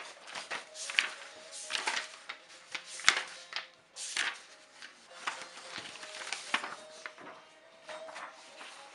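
Irregular clicks and knocks of small objects being handled and set down, the sharpest about one and three seconds in, over faint background music.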